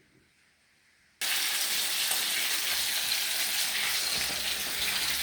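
Near silence, then about a second in a sudden steady sizzle: chicken frying in hot oil in a pot.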